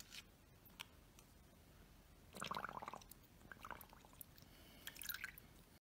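Mostly near silence, with faint splashing and sloshing of water in a shallow plastic tub as a puppy paws at it, most noticeable in a short stretch about two and a half seconds in, and a few faint ticks later on.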